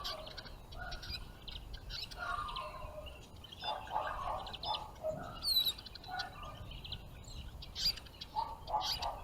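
Small songbirds chirping and twittering, many short overlapping calls, with one clear whistled note about five and a half seconds in.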